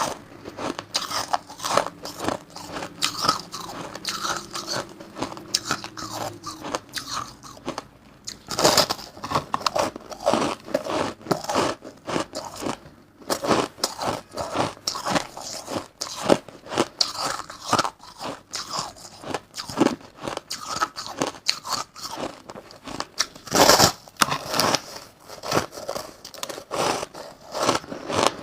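A person biting and chewing crushed ice close to the microphone: a continuous, irregular run of crisp, crackly crunches, with a few louder bites.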